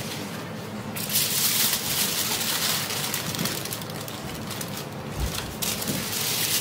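Aluminium foil crinkling and rustling as grilled sturgeon pieces are pushed off a metal skewer onto it, loudest for a couple of seconds about a second in and again near the end, over a faint steady hum.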